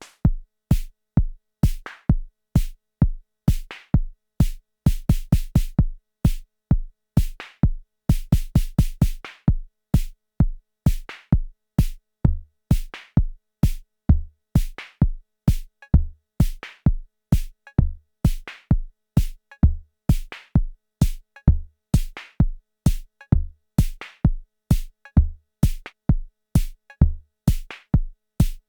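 Arturia DrumBrute Impact analog drum machine playing a sequenced beat: deep kick drum with sharp percussive hits in a steady pattern, and quick rolls of rapid hits about five and eight seconds in.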